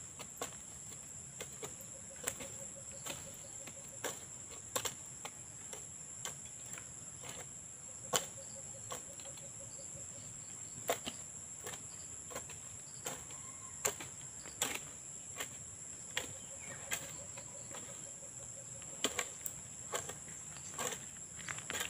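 Hoe blades chopping into soil and weeds in sharp, irregular strokes, a stroke every second or so, over a steady high drone of insects.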